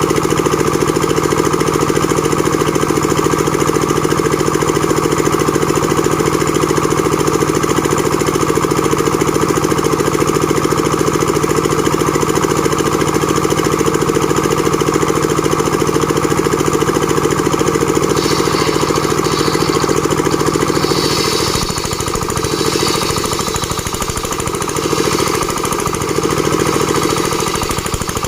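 Engine-driven board-making (sawmill) machine running steadily with an even hum. About twenty seconds in, the sound turns rougher and uneven and dips slightly in level.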